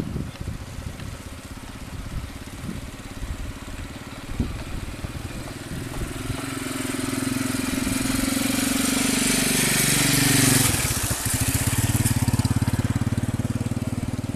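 Hino dump truck's diesel engine pulling up a dirt track, getting steadily louder as it nears. Its note peaks about three-quarters of the way through, drops abruptly, then settles into a steady low rumble.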